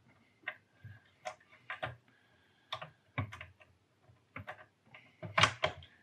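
Irregular clicks, knocks and light scrapes of a server motherboard tray being worked into its metal chassis and a cable connector being fitted, with the loudest clatter about five and a half seconds in.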